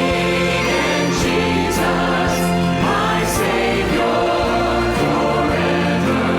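Worship music with a choir of voices singing over instrumental accompaniment, with long held notes.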